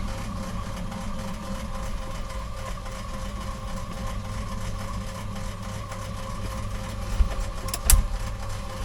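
A machine running steadily with an even hum, and two short sharp knocks near the end.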